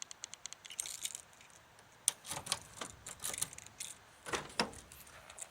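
A bunch of car keys jangling with quick metallic ticks, then several sharper clicks and knocks.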